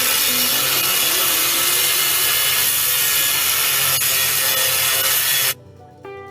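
A power tool cutting a hole for the fairlead mount, running at a steady pitch for about five and a half seconds and then stopping abruptly. Guitar background music plays underneath.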